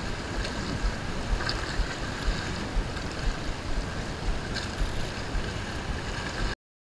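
Sea water washing and lapping against jetty rocks, with wind buffeting the microphone in irregular low thumps; the sound cuts off abruptly near the end.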